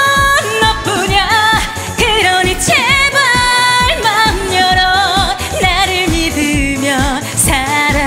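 Upbeat dance-pop trot backing track with a steady kick drum about twice a second under a wavering melodic lead line.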